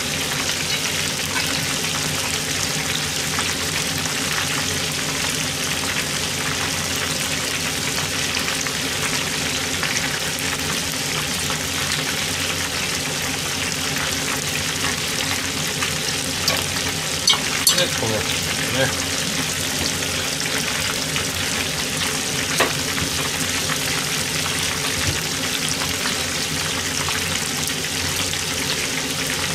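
Food deep-frying in hot oil: a steady, dense sizzle, with a few light clicks and knocks around the middle.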